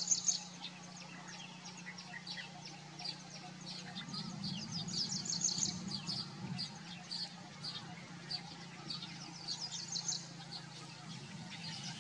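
Background birds chirping: many short, high chirps in quick runs, over a steady low hum.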